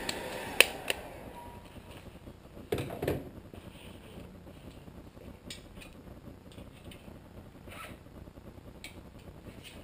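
An industrial hot-air gun's blower dying away in the first second, then sparse metal tool clicks and a short clatter about three seconds in as tools are handled on a bicycle crank.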